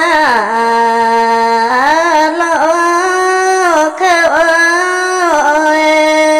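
A woman singing a Red Dao hát lượn folk song solo and unaccompanied: long held notes joined by sliding, bending ornaments, with a brief breath about four seconds in.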